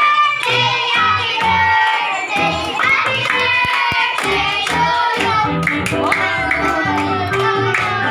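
Music with singing, children's voices among the singers, and hand clapping.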